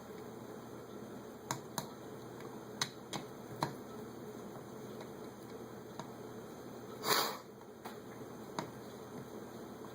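Small metal carburetor parts and hand tools clicking and tapping as a Holley carburetor is taken apart, a few sharp clicks at a time over a steady background hum, with one louder, short rasping noise about seven seconds in.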